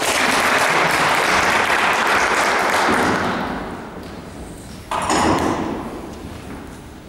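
A small audience clapping, dying away after about three seconds, then a second, shorter round of clapping starting sharply about five seconds in.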